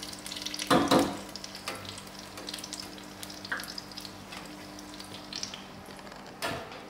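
Oliebollen (dough balls) sizzling and crackling in hot oil in an electric deep fryer while they are turned with a metal utensil, which knocks against the basket once about a second in and again near the end.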